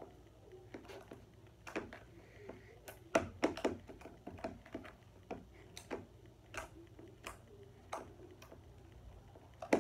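Homemade Elmer's glue slime, made with baking soda and contact lens solution, being squeezed and poked by hand in a plastic container, giving irregular wet clicks and pops. A quick run of clicks comes about three seconds in and the sharpest one near the end; the slime is stretchy and still a little sticky.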